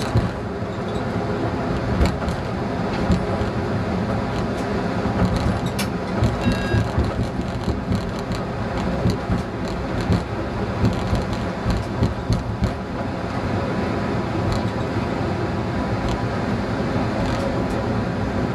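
ČD class 854 diesel railcar running at speed, heard from the cab: the steady hum of its diesel engine over the rumble of the wheels on the rails, with scattered sharp knocks as the wheels cross rail joints and points. A brief high beep sounds about six and a half seconds in.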